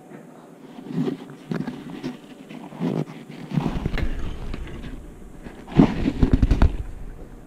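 Cardboard phone boxes being handled and set down on a wooden table: a series of irregular soft knocks and thumps, the heaviest cluster about six seconds in, with rubbing and handling noise on the handheld camera.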